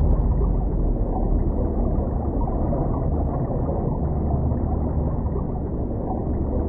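Underwater ambience: a steady, deep wash of noise with no clear tones.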